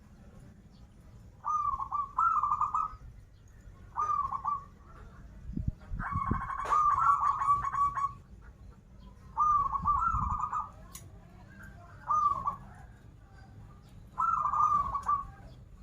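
Zebra dove (perkutut) cooing: short phrases of quick rolling notes, repeated about every two seconds, with one longer, louder phrase near the middle.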